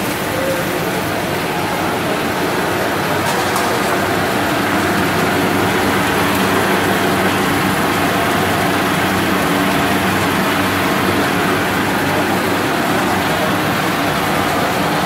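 Cereal-ring puffing extrusion line machinery running steadily: an even mechanical noise with a steady hum underneath, unbroken throughout.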